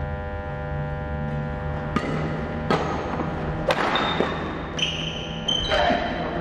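Badminton rally: four sharp racquet strikes on the shuttlecock over about four seconds, starting about two seconds in, with short high squeaks of shoes on the wooden court floor between the later strikes. A steady electrical hum runs underneath.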